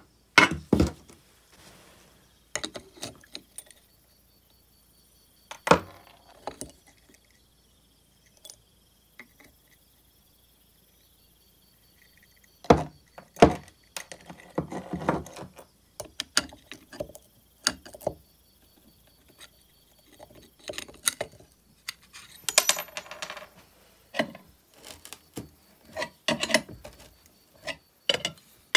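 Metal hand tools clinking and knocking against a chainsaw's steel flywheel and the workbench: scattered short taps and clinks with pauses between, the loudest a pair of sharp knocks about halfway through. This is the handling of a socket wrench, the flywheel nut and a two-jaw gear puller.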